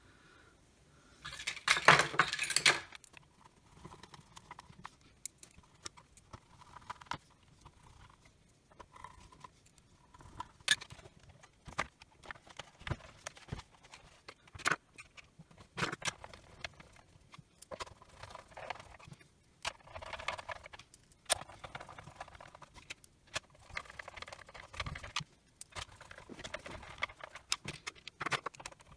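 Hands reassembling a plastic battery-charger housing: scattered clicks, knocks and light rattles of the plastic case and tools being handled on a workbench mat, loudest in a clattering burst about two seconds in.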